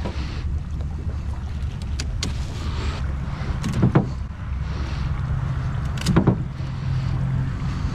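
Air from a pond diffuser bubbling up at the water's surface beside an aluminium rowboat, a steady low rumble, with two louder knocks on the boat about four and six seconds in.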